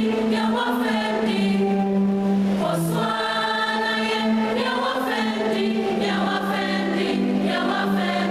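Large group of students singing together as a choir, holding long notes that change pitch every second or so.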